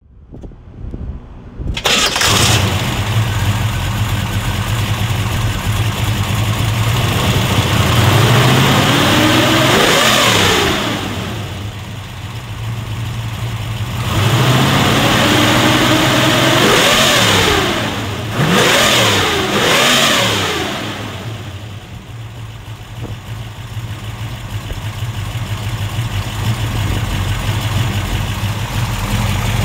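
A 350 cubic-inch Chevrolet V8 with a Holley 780 carburettor and dual Flowmaster exhaust with headers is cranked and catches about two seconds in, then idles. It is revved up and down twice in the middle, given a few quick sharp blips, and settles back to a steady idle.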